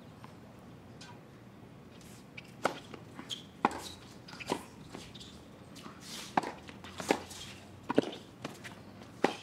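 Tennis rally: a serve about two and a half seconds in, then sharp racket hits and ball bounces going back and forth, roughly one a second.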